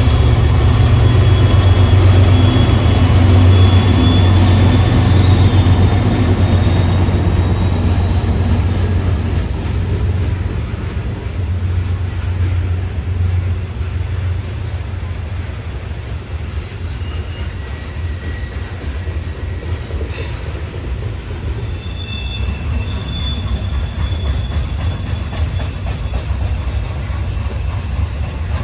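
A Norfolk Southern coal train passing: the diesel locomotives' low engine drone fades away over the first ten seconds, leaving the steady rumble of the coal hopper cars rolling by. Brief high wheel squeals sound several times, most clearly about three-quarters of the way through.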